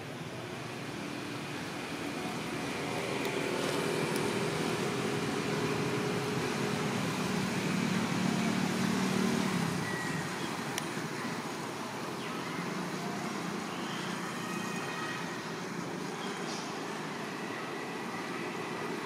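A motor vehicle passing: a steady engine hum with road noise that grows louder to its loudest about nine seconds in, then fades back to a steady background rumble.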